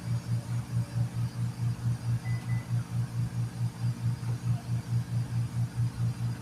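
Air compressor running steadily, pumping air into a tire to seat its bead, with a low humming throb of about five beats a second.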